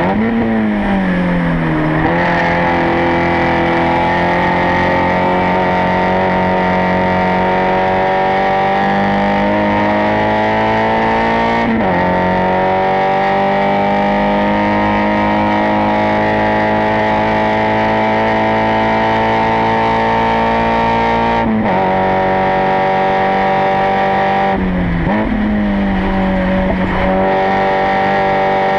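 Spec Miata four-cylinder racing engine at full throttle, revs climbing slowly through long pulls. There are sharp upshifts about 12 and 22 seconds in, then a short lift with the pitch dipping and recovering near the end.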